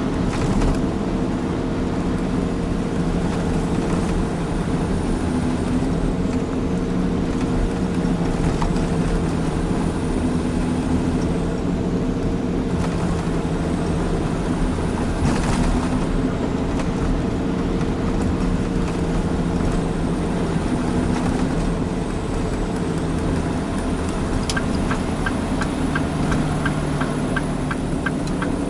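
Cab interior of a Mitsubishi Fuso Super Great heavy truck on the move: a steady diesel engine drone with road and tyre noise. A quick regular ticking joins in near the end.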